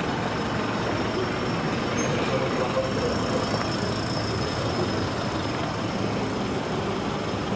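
Steady city street noise, mainly road traffic running, with no single event standing out. A faint high steady tone lies underneath.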